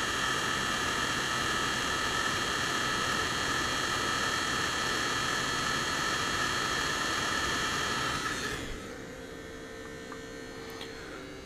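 Hot-air rework gun blowing steadily with a fan whine, heating a surface-mount regulator chip to reflow its solder onto the board. About eight and a half seconds in the blowing drops away, leaving a faint low hum.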